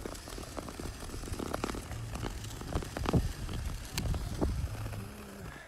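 Footfalls on bare lake ice: sharp, irregular clicks and taps of a dog's claws and paws striking the ice, over a low rumble of wind on the microphone.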